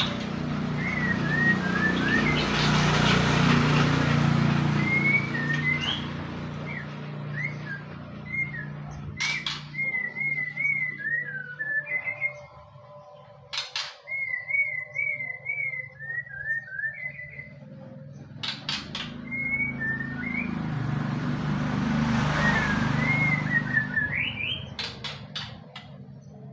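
Borneo white-rumped shama (murai batu) singing: loud whistled phrases of gliding, rising and falling notes, with a run of quick wavering trills in the middle. A few sharp clicks and two swells of hiss sit under the song.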